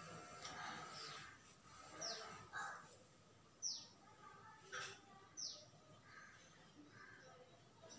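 Faint bird calls in the background: a few short, high chirps, each falling quickly in pitch and spaced unevenly over several seconds, with a sharp tick about halfway through.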